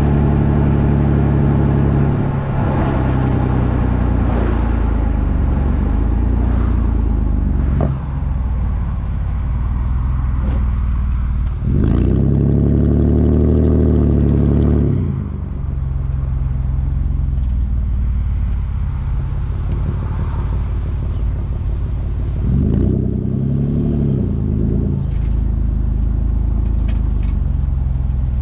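Straight-piped Toyota Sienna minivan engine idling, revved twice: once for a few seconds about halfway through and again more briefly later on. Each rev climbs, holds and falls back to idle.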